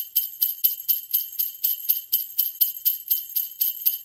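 Sleigh bells shaken in a steady, even rhythm, about four shakes a second, bright and high-pitched.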